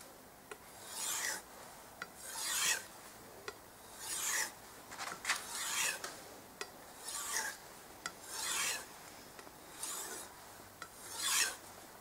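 Steel kitchen-knife blade stroked along a leather strop, a rasping swish on each pass, about eight passes roughly a second and a half apart, with light ticks between strokes. The knife is being stropped to put a final polish on its freshly ground edge.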